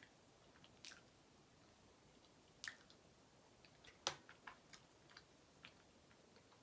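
Faint wet mouth clicks and smacks of someone chewing cheesecake, with a sharper smack about four seconds in.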